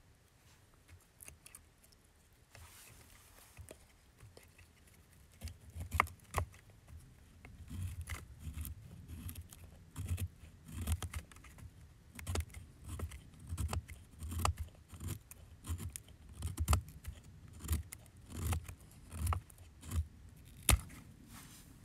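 A puukko knife's blade shaving strokes down a split stick of wood to carve a feather stick. The strokes start about five seconds in and come a little more than once a second, each a short scrape with a low thud, some with a sharp click.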